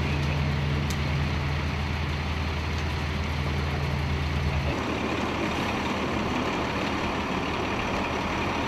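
A large military vehicle's engine idling steadily with a low, even hum. About halfway through it stops abruptly, giving way to a rougher outdoor rumble and hiss.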